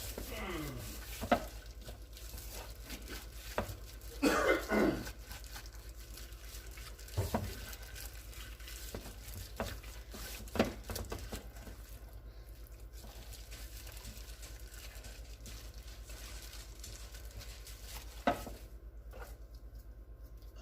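Scattered kitchen handling noises while a chuck roast is seasoned by gloved hands: light rustling, soft taps and clicks, with a louder rustle about four seconds in, over a steady low hum.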